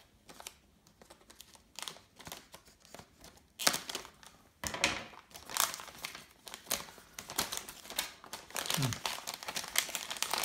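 Plastic packaging bag crinkling and rustling as it is opened and handled. It is quiet with faint ticks for the first few seconds, then crinkles loudly and in quick bursts from about three and a half seconds in.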